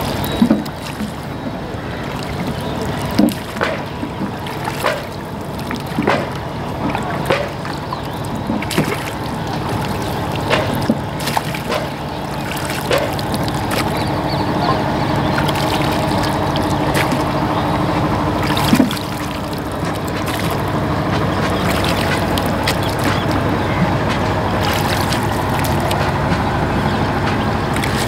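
Wooden rowing boat under oar: the oars knock in their wooden oarlocks about every second or so, with water sloshing and trickling along the hull. The knocks thin out after about twenty seconds.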